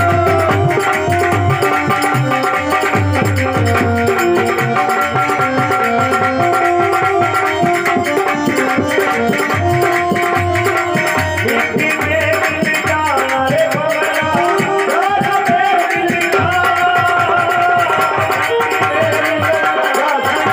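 Live Indian folk music: a harmonium playing a held, reedy melody over a steady hand-drum beat.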